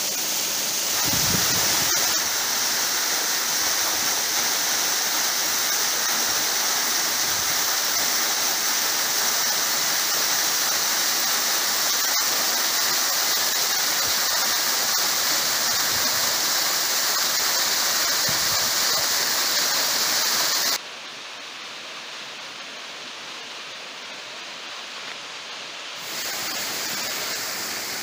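Waterfall of the Islavita stream falling about 20 m onto rock, a steady rushing hiss of water, running at reduced flow. About 21 s in it drops suddenly much quieter, and it comes partway back up near the end.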